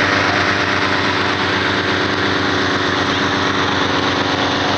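Petrol-engine inflator fan running steadily at high speed, blowing cold air into a hot-air balloon envelope during cold inflation.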